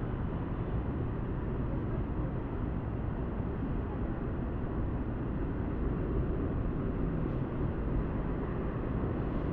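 Steady low rumble of outdoor city ambience, like distant traffic, with no distinct events.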